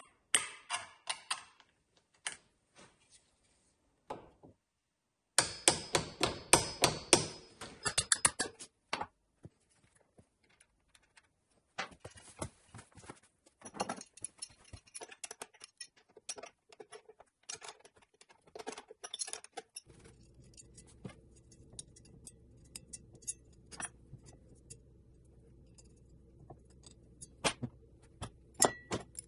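Tools and metal parts clinking, clattering and knocking as they are handled on a workbench, with a dense run of clattering knocks about a quarter of the way in. A steady low hum comes in about two-thirds of the way through and runs under the clicks.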